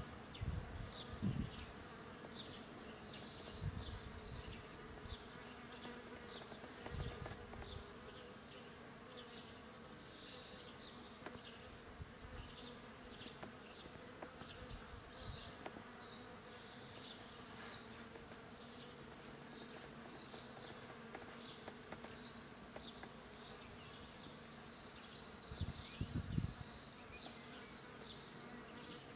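Bees buzzing faintly in a steady, wavering hum, over a continual run of short high chirps, with a few soft low thumps now and then.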